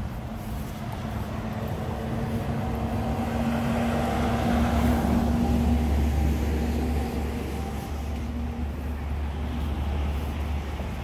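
Street traffic: a passing motor vehicle's engine hum swells to its loudest about four to six seconds in and then fades, over a steady low rumble.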